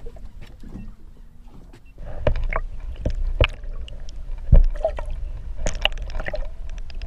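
Muffled sound from a camera held under the water: a low rumble of moving water with a series of sharp knocks and clicks, starting about two seconds in, the strongest knock near the middle.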